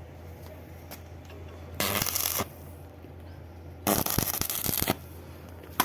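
Stick (arc) welding arc crackling in two short bursts, the first about half a second and the second about a second, over a steady low hum. This is weld being laid onto a broken bolt to get it out.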